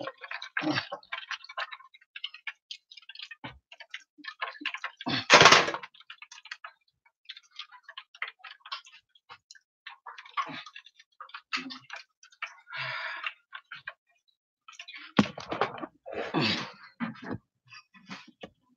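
Kitchen handling noises: scattered light clicks and taps, with one louder clatter about five seconds in and a few more knocks and rustles near the end.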